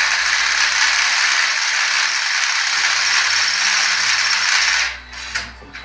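Handheld cordless drill running steadily with a rattly mechanical whir, then stopping abruptly about five seconds in.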